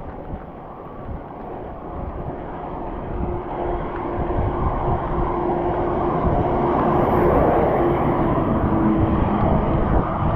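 Wind and road noise while riding a road bike in the rain, with a motor vehicle's steady engine hum rising in the middle as it draws near.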